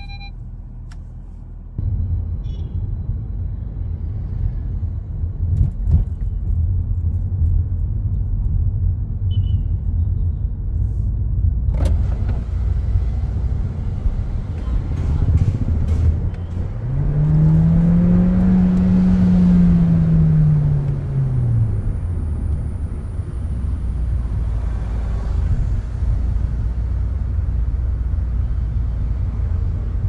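Volkswagen Taigun GT's 1.5 TSI turbocharged four-cylinder petrol engine with stock exhaust, heard from inside the cabin while driving, over steady road noise. About halfway through, the engine note climbs smoothly and then falls back over a few seconds as the car accelerates and eases off.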